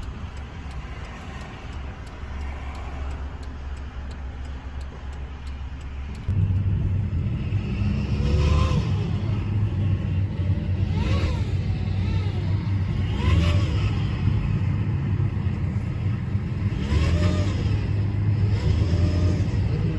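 Car driving, heard from inside the cabin: engine and road noise, growing suddenly louder about six seconds in, with a whine that rises and falls in pitch several times.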